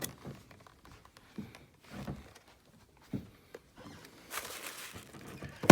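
Handling sounds of a boxed collectible and its packaging: scattered light knocks and thumps, a brief rustle about four seconds in, and a sharp knock at the end as something is set down.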